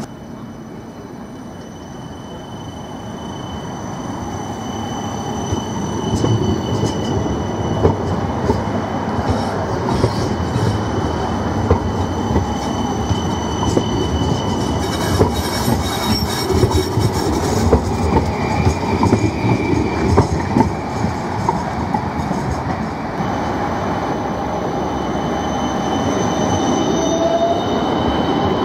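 Low-floor articulated trams passing close: a rumble that builds over the first few seconds, wheels clacking over rail joints and points, and steady high-pitched wheel squeal, with a short rising squeal near the end as a tram takes the curve.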